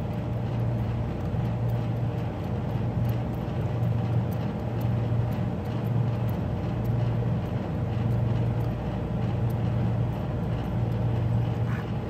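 Steady low mechanical hum of a running machine, pulsing gently in level, with faint high ticks scattered over it.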